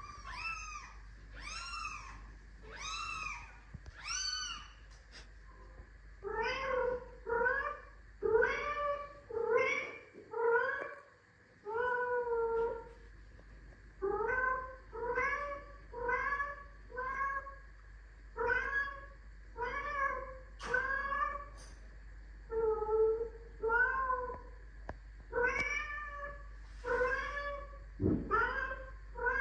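A cat meowing again and again, about one meow a second. The meows are higher-pitched for the first few seconds, then lower from about six seconds in.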